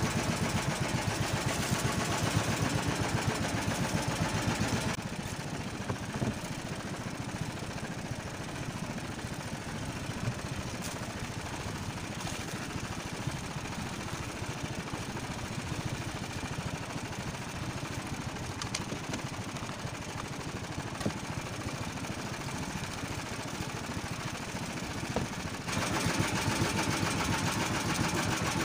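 Small single-cylinder boat engine running steadily, driving an outrigger fishing boat. Its sound drops noticeably about five seconds in and rises again a few seconds before the end.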